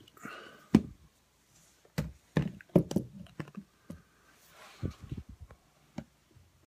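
Irregular knocks, thumps and clicks of a phone being handled close to its microphone, the loudest just under a second in and a cluster around two to three seconds in.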